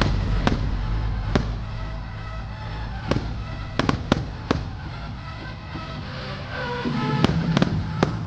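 Aerial fireworks shells bursting in a string of sharp bangs, about ten in all, bunched in the middle and again near the end, over music playing throughout.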